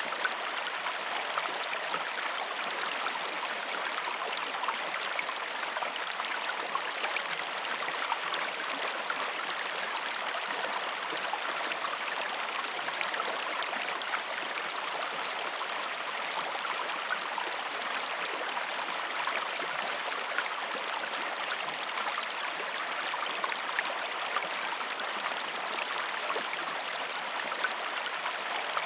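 A river or stream flowing steadily, a continuous rushing hiss with small splashes and trickles throughout.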